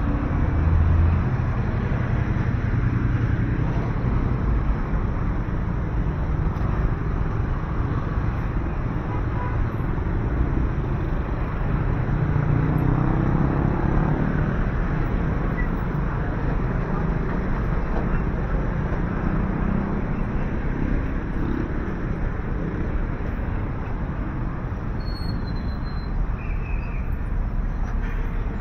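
Steady city street ambience of passing road traffic, with engine and tyre noise whose weight sits in the low end.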